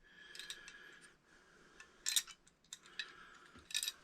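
Faint clicks and light rustling of something being handled, with two brief, louder scrapes about two seconds in and near the end.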